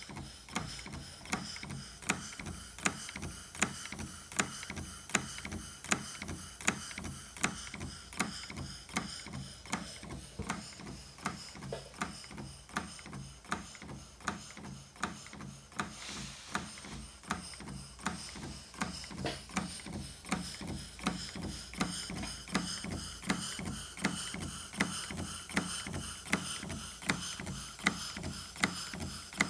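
Stuart model beam steam engine running at a steady speed, ticking in an even rhythm of sharp clicks.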